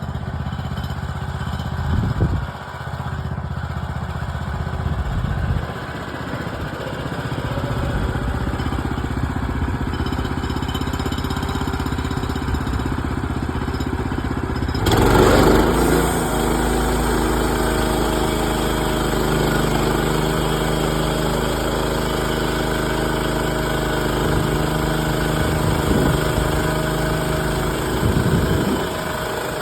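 The small gas engine of a Woodland Mills HM130 Max portable bandsaw mill runs steadily at a low speed. About halfway through it suddenly speeds up and gets louder, with more hiss and rush on top, as the mill is brought up to working speed.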